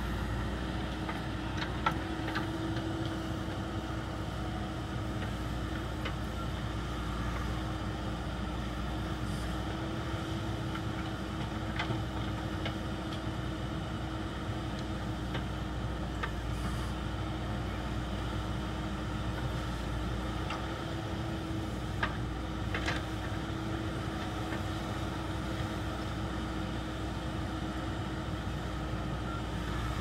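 JCB backhoe loader's diesel engine running steadily under load while the backhoe arm digs, with a steady hum and a few brief knocks scattered through.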